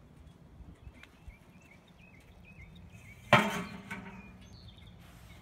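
A single loud clank from the steel retort drum's lid being handled, about three seconds in, ringing briefly as it fades. Faint bird chirps before it.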